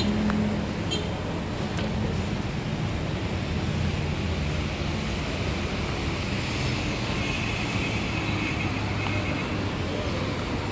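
Steady hum of road traffic from a street, with engines running and no single event standing out.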